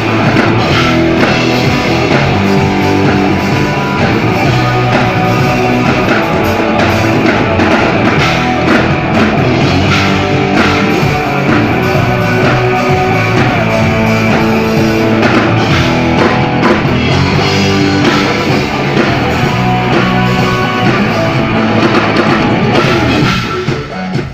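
A live rock band playing loud, with drum kit and guitar. The band breaks off just before the end.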